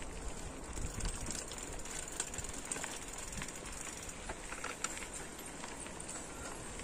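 Bicycle rolling along a dirt trail: a steady crunch of tyres on packed earth, gravel and dry leaves, with scattered small clicks and rattles and a low rumble underneath.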